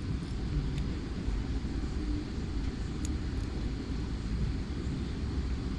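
Steady low rumble, like a vehicle engine running nearby, with a couple of faint clicks from the small plastic parts of the brake pedal switch being handled and fitted.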